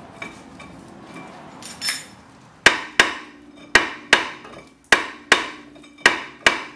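A hammer striking a rusted brake rotor on a 1988 Pontiac Fiero: eight sharp blows in four quick pairs, starting about two and a half seconds in, each leaving a short metallic ring. The taps are meant to jar the rust-seized rotor loose from the hub.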